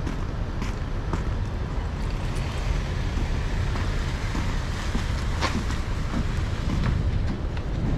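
Honda CR-V driving slowly across a parking lot and pulling into a space, under a steady low rumble of wind on the microphone, with a few light clicks, the clearest a little past the middle.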